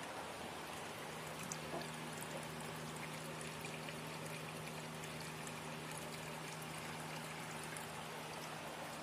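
Water trickling and pouring steadily in a small aquaponics tank, with a steady low hum underneath.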